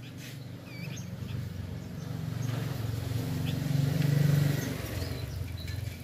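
A low rumble that swells to a loud peak about four seconds in and then eases off, with a few short, faint high chirps from caged Horsfield's babblers scattered over it.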